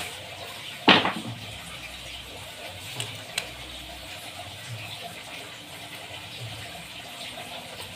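A sharp knock about a second in, as a length of picture-frame moulding held in a red metal corner clamp is set down on the floor, followed a couple of seconds later by two light clicks. A steady hiss runs underneath.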